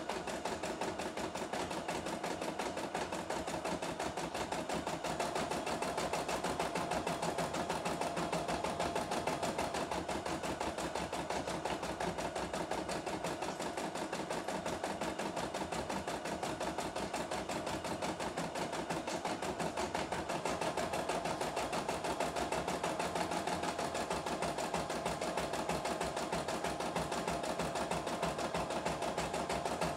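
CNY E960 computerized embroidery machine stitching steadily at a fast, even rate, its needle mechanism running without pause as the hoop carries the fabric through the design.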